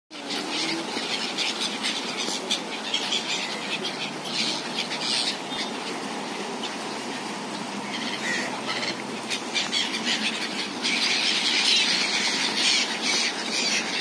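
A large flock of gulls calling, many overlapping high squealing cries. The calling grows louder and busier about eleven seconds in.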